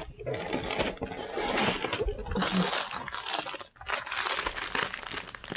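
Plastic LEGO parts bags crinkling and rustling as they are handled and lifted out of the box. There is a brief lull about two-thirds of the way through.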